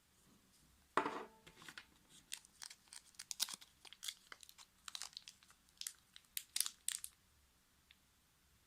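Plastic packaging crinkling and tearing: a run of sharp, irregular crackles that starts suddenly about a second in and stops near seven seconds.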